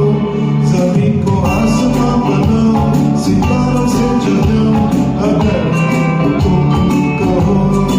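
Bollywood film song playing: a backing track with plucked guitar over a steady beat.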